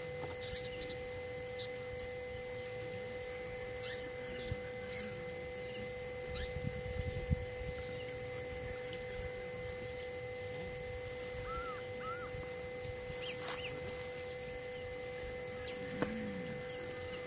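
Outdoor forest ambience: scattered short bird chirps and calls, with two quick arched calls about two-thirds of the way through, over a steady hum.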